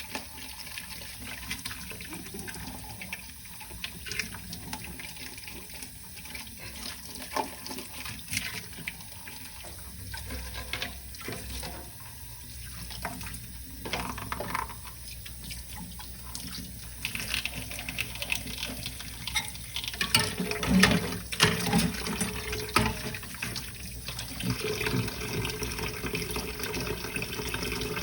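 Water running from a sink tap while dishes are washed by hand, with frequent knocks and clinks of dishes. The rush gets louder about two-thirds of the way in.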